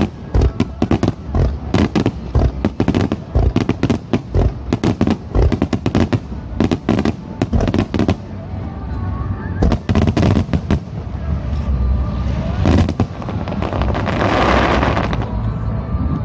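Fireworks going off: a dense rapid string of bangs and crackles for about the first eight seconds, then a few separate heavy booms, and a rushing hiss near the end.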